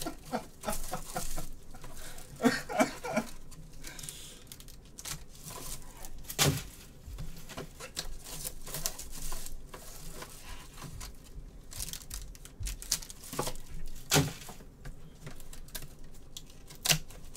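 Gloved hands tearing open a sealed cardboard trading-card box: crinkling wrap, scraping and tearing cardboard, and scattered small clicks, with a few sharper knocks about six and fourteen seconds in.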